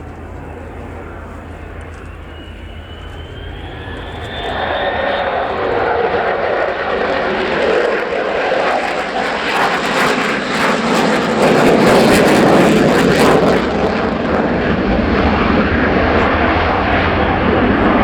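Lockheed Martin F-35B Lightning II fighter jet, its Pratt & Whitney F135 engine heard in a flypast with the aircraft configured for short takeoff and vertical landing. A rising whine comes first; then the jet noise swells loud about four seconds in and is loudest about two-thirds of the way through.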